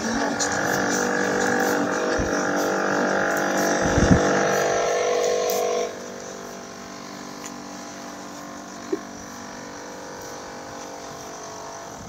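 Steady machine hum at a constant pitch that drops sharply in level about halfway through and carries on faintly, with a low thud about four seconds in.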